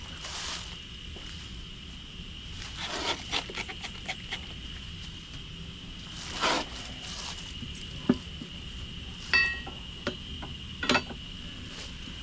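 Steady high buzz of insects such as crickets, broken by scattered short scrapes and knocks from the tire work. One of these is a metal clink that rings briefly a little after nine seconds in.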